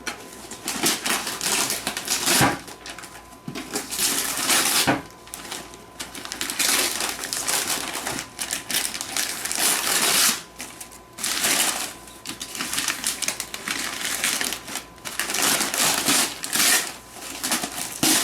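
Cardboard and paper packaging rustling, scraping and tearing in repeated bursts as a box is pulled open by hand, with a couple of sharp knocks early on.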